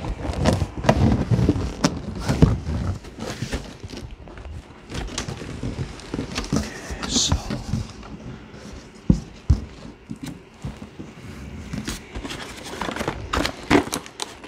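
A cardboard printer box being opened and unpacked by hand: flaps pushed back, cardboard and foam packing rustling and knocking, with a short scraping hiss about halfway through. Near the end a flat cardboard accessory box is lifted out.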